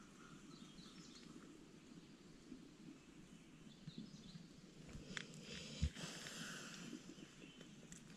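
Faint quiet outdoor ambience around a tent: a low steady background hush with a few faint, distant bird chirps, then a single soft thump and a brief rustle a little over halfway through.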